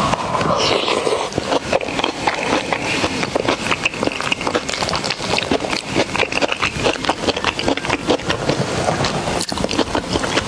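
Close-miked eating: a dense, steady run of crunching and wet chewing clicks.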